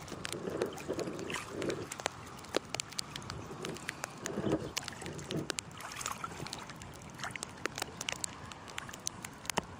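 Lake water sloshing and splashing around people wading chest-deep while they handle a fishing net, with frequent small sharp splashes and drips and a few softer surges of water.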